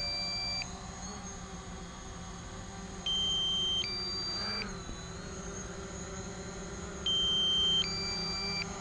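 Drone remote controller's low-battery alarm: a high electronic beep followed by a two-note beep, the pair repeating about every four seconds, over a low steady hum.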